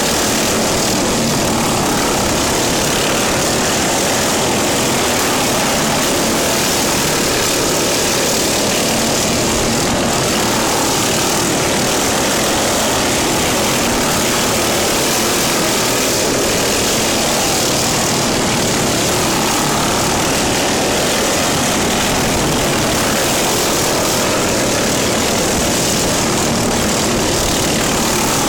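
Lawn mower engine running steadily and loudly, with no change in speed.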